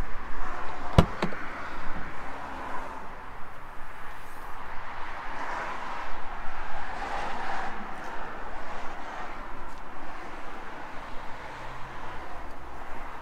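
A single sharp click about a second in as the Renault Megane E-Tech's tailgate latch is released, followed by steady outdoor background noise as the hatch is raised.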